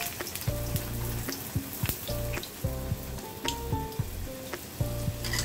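Poori deep-frying in hot oil in a steel kadhai: the oil sizzles steadily, with small scattered pops. Soft background music with held notes and a bass line plays underneath.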